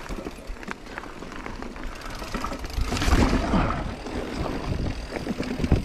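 Mountain bike riding fast down a dirt forest trail, heard close on the bike: tyres running over dirt and roots, the bike rattling and clattering over bumps, and wind on the microphone. It gets louder and rougher about three seconds in.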